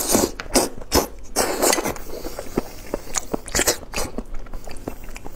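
Close-miked eating sounds: biting into and chewing braised lamb-head meat, with wet lip smacks and many short sharp clicks from the mouth.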